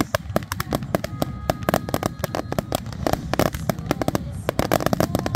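Fireworks display going off in a dense barrage: many sharp bangs and pops, several a second, overlapping with no break.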